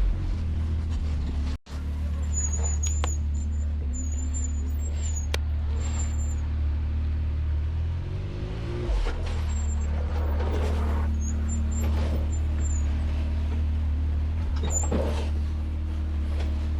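Off-road side-by-side's engine running steadily at low revs while crawling down a rocky trail, with a brief rise and fall in revs about eight seconds in.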